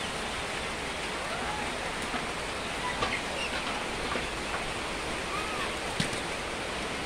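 Steady hiss of noise inside a broiler chicken shed, with a faint chirp from a chicken now and then and a single knock about six seconds in.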